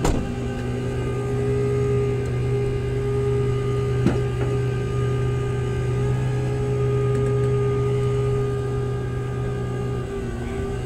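Flatbed tow truck's engine and hydraulic winch running steadily with a constant hum while a car is pulled up the bed. A sharp click right at the start and a single knock about four seconds in.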